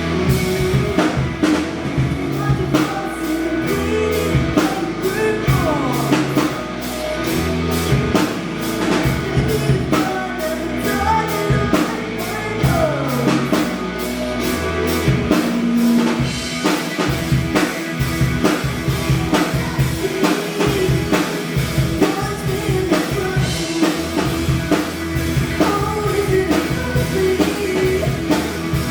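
Rock music played during a band's sound check: a drum kit keeps a steady beat under a singing voice and other instruments.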